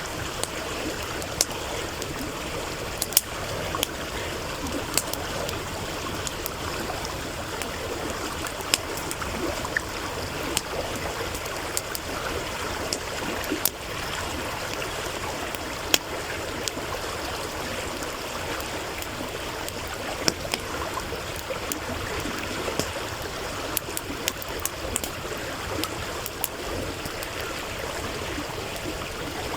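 A stream running steadily over stones, with a wood campfire crackling close by in irregular sharp pops and snaps, several every few seconds.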